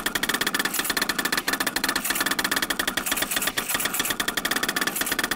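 Creality Ender 3D printer running a print: its stepper motors whir and buzz in rapid, ever-changing pulses as the print head moves.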